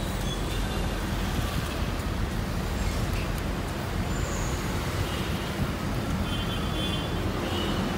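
Steady street traffic noise from cars in a busy city street, heaviest in the low end, with faint high tones about five to seven seconds in.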